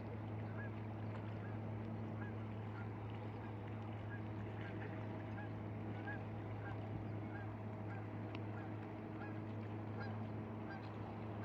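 Geese honking repeatedly at about two calls a second, over a steady low hum.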